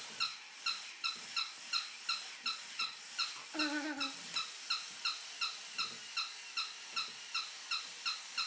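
Squeaky toy monkey giving a steady run of short, high squeaks, about three a second, while it lies untouched. About halfway through there is a brief low vocal sound.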